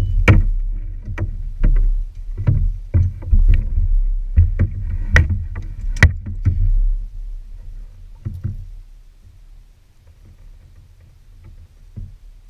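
Plastic fishing kayak knocking and bumping, with a deep rumble of hull noise and a string of sharp knocks as it works against wooden dock pilings. The loudest knock comes about six seconds in. After about eight seconds it goes much quieter, with only a few faint clicks.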